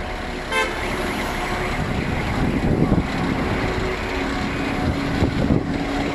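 Road traffic on a multi-lane avenue: cars passing with engines running. There is a short high-pitched tone about half a second in and a steady low hum from about four seconds in.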